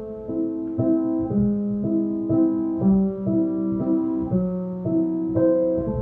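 Background piano music, a new note or chord about twice a second.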